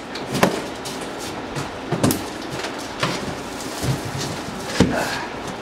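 Cardboard shipping box being opened by hand: a few sharp snaps and knocks as the plastic packing straps are cut and fall away, with cardboard scraping and rustling as the flaps are lifted.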